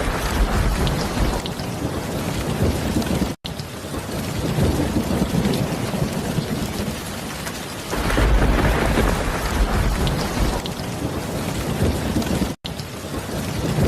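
Steady heavy rain with thunder rolling in low rumbles, once near the start and again about eight seconds in. The sound cuts out for an instant twice.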